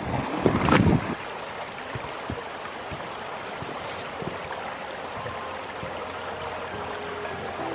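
Shallow creek flowing over rocks, a steady rushing babble. In the first second, heavy boot footsteps close to the microphone with wind buffeting, then only faint steps on stones among the water.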